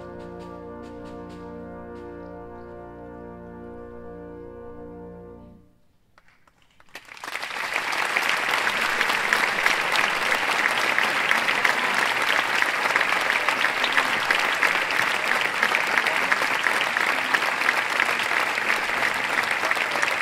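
A brass ensemble of trumpets, horns, euphonium, trombones and tubas holds a final chord over percussion, with a few percussion strikes near the start. The chord cuts off about six seconds in, and after a short pause an audience breaks into loud applause.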